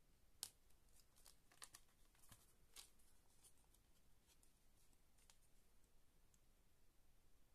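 Faint clicks and light taps of hands closing and handling a metal SteelBook Blu-ray case with a clear plastic disc tray. The clicks come thickest in the first three seconds, the sharpest one just under half a second in, then thin out.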